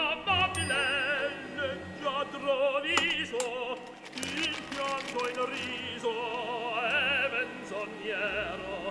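Background music: an operatic voice singing long notes with strong vibrato.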